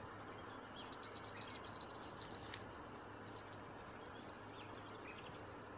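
Bite indicator on a catfish rod sounding as the rod is bent down and tensioned: a high, rapid ringing that starts about a second in and is loudest for the next two seconds, then carries on lighter and broken.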